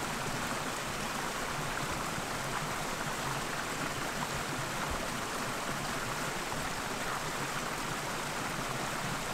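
Small forest creek cascading over logs and rocks: a steady rush of splashing water.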